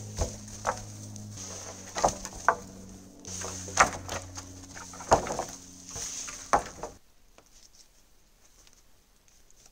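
Cut poles being tossed onto a log pile: about seven sharp wooden knocks over six or seven seconds, then it goes quiet about seven seconds in.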